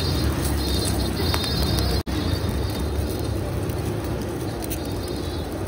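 Steady street noise with a low traffic rumble, cutting out for an instant about two seconds in.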